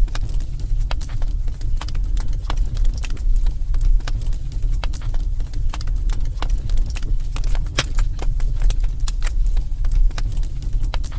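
Fire crackling in a fireplace: many irregular sharp pops and snaps over a steady low rumble.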